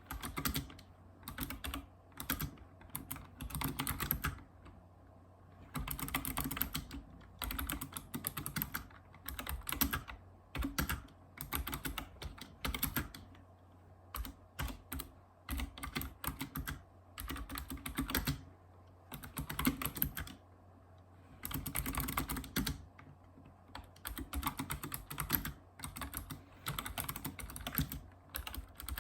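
Typing on a Razer Ornata Chroma mecha-membrane keyboard: runs of rapid keystrokes broken every few seconds by pauses of about a second.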